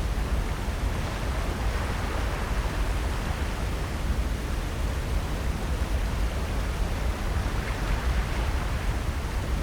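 Steady seaside ambient noise: a constant even rush with a heavy low rumble, and no separate events standing out.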